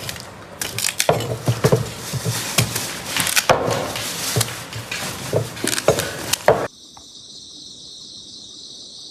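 Sweet potatoes being chopped into small chunks, with irregular sharp chopping knocks several times a second. About two-thirds of the way through, it cuts abruptly to a steady, high chirring of insects.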